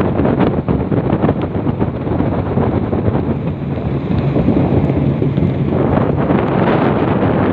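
Heavy wind buffeting the phone's microphone aboard a fast-moving open motorboat, over the steady hum of the boat's motor and rushing water.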